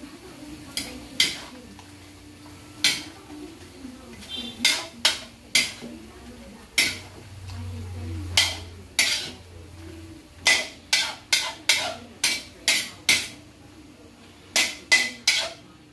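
Metal ladle clanking and scraping against an aluminium wok while vegetables are stirred and sautéed, in irregular strokes roughly every half second to a second. A low hum sits under it from about seven to ten seconds in.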